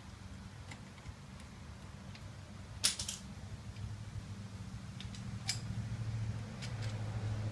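Light metallic clinks of tools and wheel hardware, with one sharp loud metal clank about three seconds in and another smaller one a couple of seconds later, over a low steady hum.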